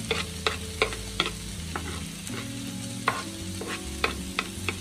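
Diced ham and bacon with onions sizzling in a non-stick wok while a black plastic spoon stirs them, knocking and scraping against the pan in an irregular run of clicks, about two to three a second.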